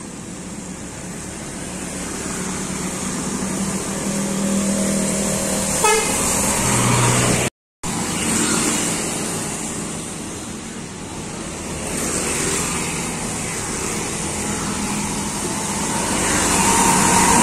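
Road traffic passing on a wet road: a truck, a pickup, motorbikes and an intercity bus drive by, engines and tyre hiss swelling and fading as each one passes. A short horn toot comes about six seconds in, and the sound cuts out for a moment about seven and a half seconds in.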